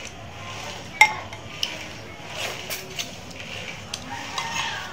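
Metal spoon clinking and scraping against a ceramic soup bowl, with a handful of separate clinks, the sharpest about a second in.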